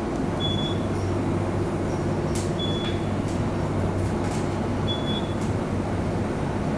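Otis elevator car travelling, with a steady hum and rumble of the moving cab. A short high beep sounds about every two seconds, the kind of tone that marks each floor the car passes, with a few faint ticks between the beeps.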